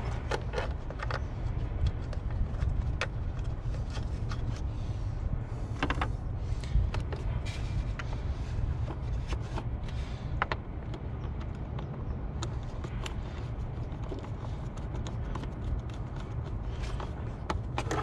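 Scattered light clicks and plastic knocks as a car's air box is pushed into place and its hose clamps are tightened with a screwdriver, over a steady low rumble.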